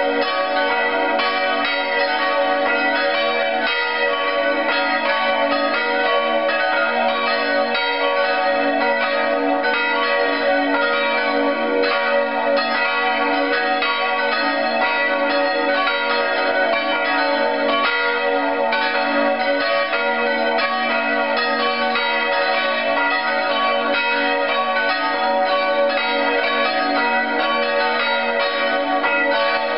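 Full peal of four Grassmayr church bells cast in 1947, tuned B-flat, D-flat, E-flat and G-flat, all ringing together in steady, overlapping strokes.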